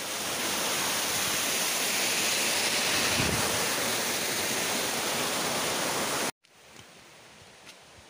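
Steady rushing of water from a rocky stream at a waterfall, which cuts off abruptly about six seconds in. A much quieter stretch with a few light ticks follows.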